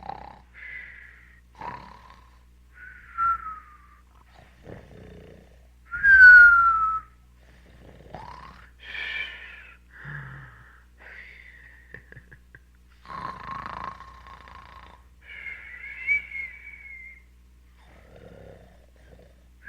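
Breathy whistling by mouth in about a dozen separate short puffs. Most are mainly air, and a few carry a clear whistled note that slides down in pitch. The loudest is a falling whistle of about a second, some six seconds in.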